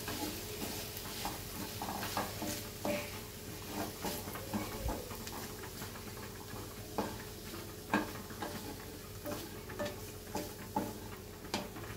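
Wooden spatula stirring and scraping potato and cauliflower pieces around a non-stick kadai in irregular strokes, about one or two a second, with a sizzle from the hot pan underneath.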